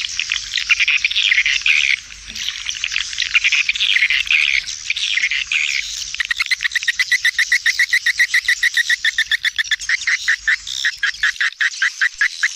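Swiftlet calling-sound lure track: a dense chorus of swiftlet chirps and twitters, played to draw swiftlets to a nesting house. About six seconds in it settles into a fast, even run of short chirps.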